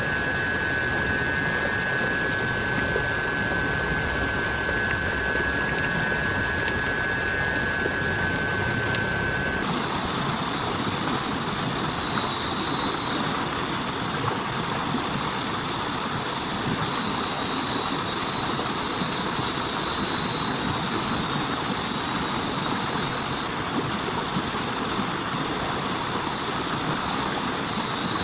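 Steady rain hiss with insects trilling high and fast. About ten seconds in, the sound changes abruptly and a lower steady insect tone drops out.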